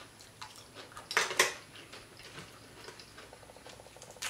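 Eating sounds from a crispy fried croaker: faint chewing and small clicks, with two short crisp crackles about a second in as the fried fish is broken apart.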